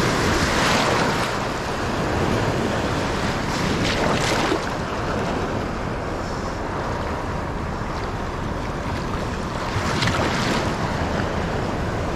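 Wind buffeting the microphone over the wash of sea water, a steady noise that swells near the start, about four seconds in and again about ten seconds in.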